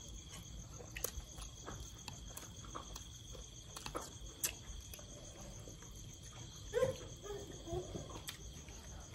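Crickets chirping steadily at night, a continuous high-pitched pulsing trill. Scattered soft clicks and mouth sounds of someone eating by hand run over it.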